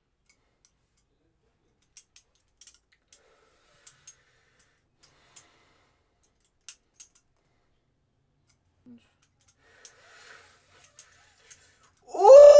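Practice butterfly knife being flipped: sparse, irregular light metallic clicks as the swinging handles knock against the pins and each other. A loud voice breaks in near the end.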